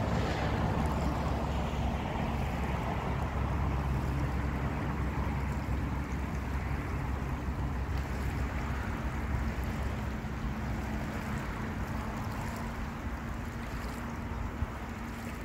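Distant motorboat engine droning steadily and slowly fading, over wind and open-water ambience.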